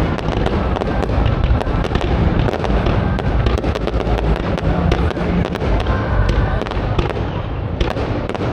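Fireworks bursting in rapid, overlapping succession: a continuous low rumble of booms, thick with sharp cracks and crackles.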